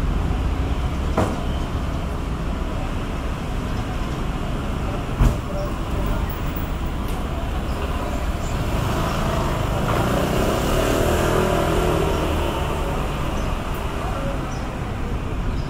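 Street traffic noise, steady and rumbling, with a motor vehicle passing and swelling louder in the middle. A single sharp knock about five seconds in.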